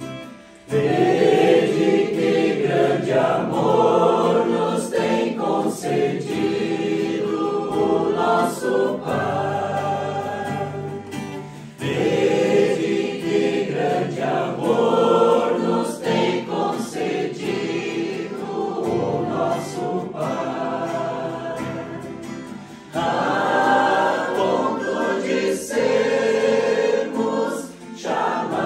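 A singing group sings a Christian song together in chorus. Phrases start afresh about a second in, at about twelve seconds and at about twenty-three seconds.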